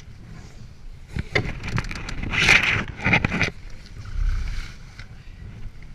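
Splashing and knocking around a Laser 2000 sailing dinghy's hull in the shallows, in irregular bursts that are loudest from about two to three and a half seconds in.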